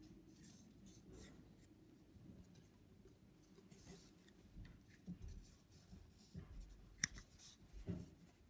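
A Lego minifigure being handled: faint rubbing of fingers on the plastic with small scattered clicks, the loudest a sharp click about seven seconds in as a piece comes off.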